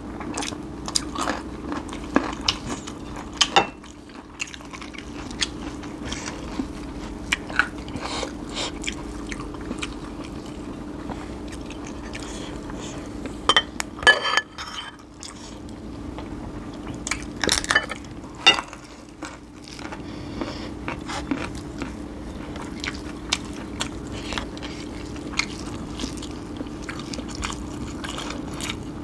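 Close-up eating sounds: crisp bites into young green mango and steady chewing, with many small clicks and crunches and a few louder clusters about 14 and 18 seconds in, over a steady low hum.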